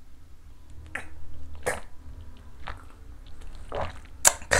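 A man downing a shot of soju: a handful of short gulping and throat sounds, about one a second.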